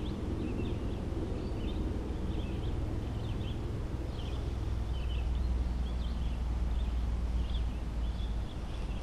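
Small birds chirping repeatedly in short, high calls over a steady low rumble.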